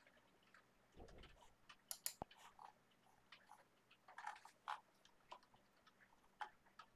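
Faint, irregular clicks from a computer mouse and keyboard, with a soft thump about a second in.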